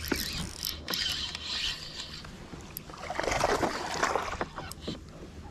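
Scraping and rubbing handling noise on a kayak, with short knocks and light water splashes, as a small bass is reeled in and grabbed. The noise is loudest a little past the middle.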